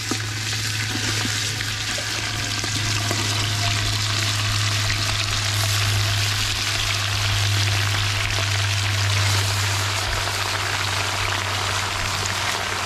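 Raw chicken pieces dropping into hot oil in a large metal pot, sizzling and frying steadily. A steady low hum runs underneath.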